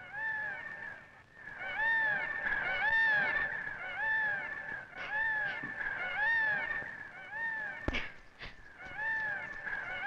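Birds calling: short rising-and-falling notes, mostly in pairs, repeated about once a second over a faint steady high tone. A couple of sharp clicks come about eight seconds in.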